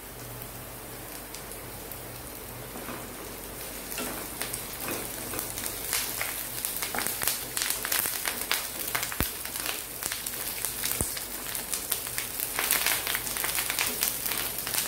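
Sliced shallots and fresh curry leaves sizzling and crackling in hot oil in a nonstick pan while being stirred with a wooden spatula. The crackling gets busier about four seconds in.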